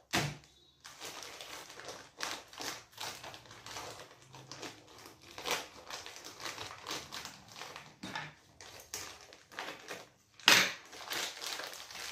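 Plastic courier-bag packaging crinkling and rustling as it is unwrapped by hand, in irregular crackles with one louder crackle near the end.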